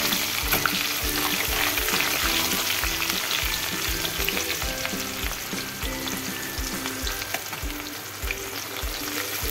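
Sliced onions with cumin seeds frying and sizzling steadily in very hot oil in a metal kadhai, with the steel spatula scraping and stirring against the pan. The onions are being browned.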